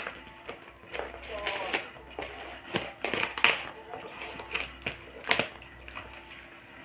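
Scissors cutting through packing tape on a cardboard box: a run of irregular sharp snips and crackles, with the tape and cardboard rustling.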